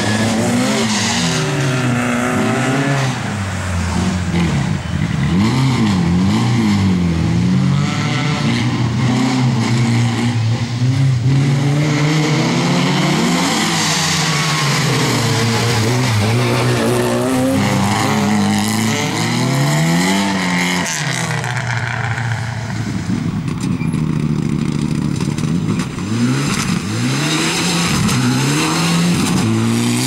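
Rally car engines, among them a BMW E30 M3, revving hard as the cars pass one after another. The pitch climbs and drops over and over through gear changes and lifts off the throttle, with a change to a different car about two-thirds of the way through.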